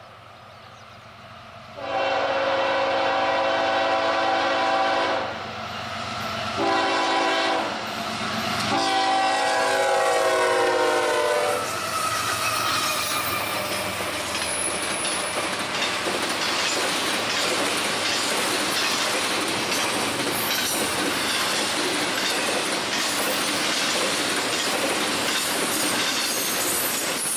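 Norfolk Southern diesel freight locomotive's multi-chime air horn sounding three blasts, long, short, long, the last one dropping in pitch as the locomotive passes. Then comes the steady rumble and clatter of the intermodal train's wheels rolling by on the rails.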